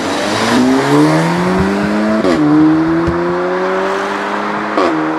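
2015 Audi S3 sedan's turbocharged 2.0-litre four-cylinder accelerating hard from a pull-away. The engine note rises in pitch, drops sharply at an upshift a little over two seconds in, climbs again, and drops at a second upshift near the end, with a short sharp crack at each shift.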